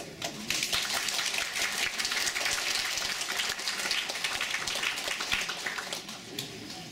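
Audience applauding as a choir song ends: a dense patter of many hands clapping that thins out about six seconds in.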